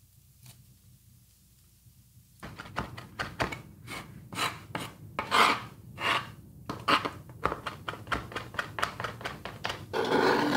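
Chef's knife chopping fresh herbs on a plastic cutting board: quick, uneven knocks, several a second, that start after about two seconds of near silence. Near the end the knife makes a short scrape as it sweeps the chopped herbs off the board.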